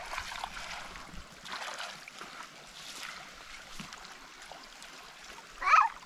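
Steady rushing of water, swelling and easing, broken near the end by one short, loud, high-pitched call.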